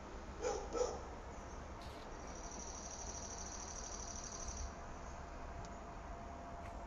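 Open-air ambience on a hillside: a distant dog barks twice just after the start, then a high, rapid trill sounds for about two and a half seconds over a steady low rumble.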